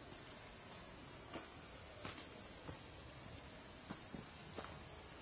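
Steady high-pitched chorus of insects buzzing without a break, with a few faint ticks underneath.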